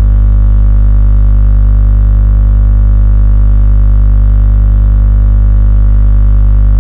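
Loud, steady low electrical hum or buzz with many even overtones, unchanging throughout.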